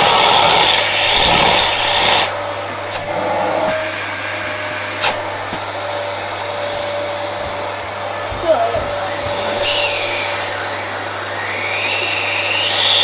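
Household vacuum cleaner running, with a louder rush of air in the first two seconds and a whistling whine that dips and then rises near the end.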